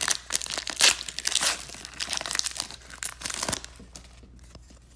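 Foil wrapper of a trading-card pack being torn open and crinkled, irregular crackling that stops about three and a half seconds in.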